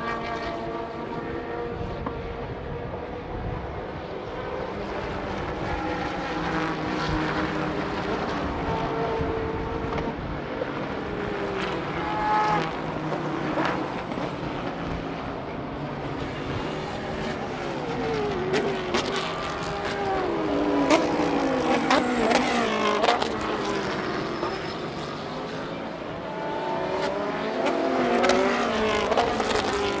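Several GT race cars passing one after another through a run of bends, their engines rising and falling in pitch as they brake and accelerate, with several sharp cracks along the way.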